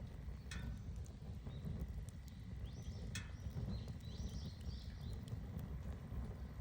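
Wood fire crackling with scattered small snaps and a couple of louder pops, over a steady low rumble. A bird chirps several times in the middle.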